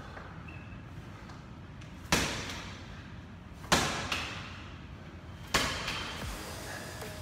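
Slam ball thrown hard against a wall three times, each hit a sharp thud with a short echo off the bare room, about one and a half to two seconds apart.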